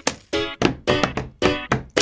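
Music with a fast, even beat of hands drumming on wooden desks, about four to five strokes a second. Each stroke carries a short pitched note.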